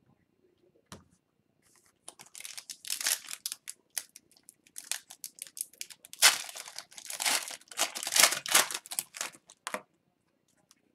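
A hockey card pack wrapper being torn open and crinkled by hand: a dense run of crackling rustles starting about two seconds in, loudest in the middle, stopping shortly before the end.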